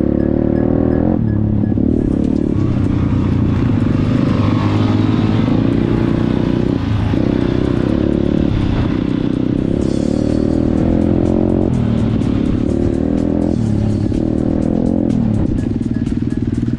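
Music playing over an off-road motorcycle engine that runs and revs, with short dips in its sound every few seconds.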